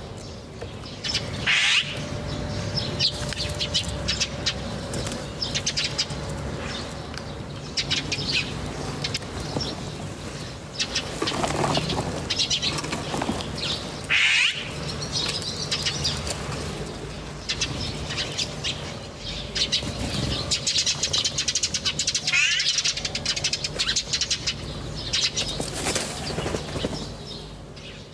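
Many small birds chirping and twittering, their short chirps and quick high trills overlapping one another.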